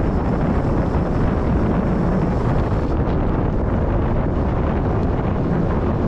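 Steady wind rumble on the microphone of a cyclist's camera, from air rushing past while riding a bicycle on a paved road.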